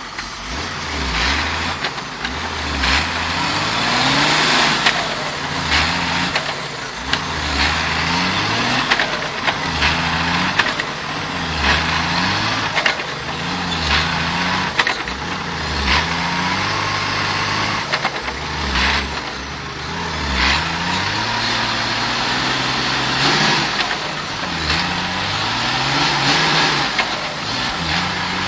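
Heavy truck's diesel engine working under load, its pitch rising and falling again and again, with repeated short bursts of noise over it.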